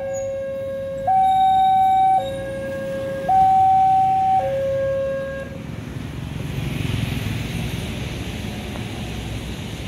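Railway level-crossing warning alarm sounding a two-tone high-low signal, each tone held about a second, which cuts off about halfway through. A rushing noise then swells and fades, like a vehicle passing.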